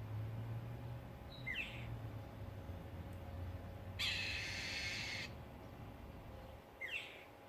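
A bird calling: short whistled notes that slide up and down, about a second and a half in and again near the end, and a harsh, hissing screech lasting just over a second about four seconds in.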